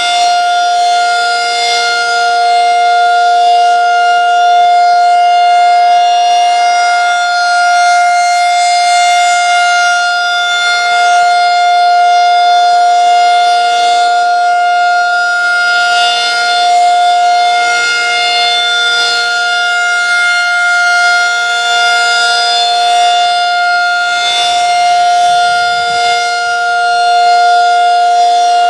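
Federal Signal 2001-SRN outdoor warning siren sounding a steady tone during a siren test, its pitch held constant while its loudness swells and fades slightly.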